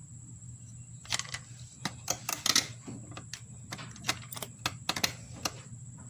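Irregular metallic clicks and clinks of small hardware being handled: washers and the wheel going back onto a riding lawnmower's axle. The clicks come thickest about two seconds in.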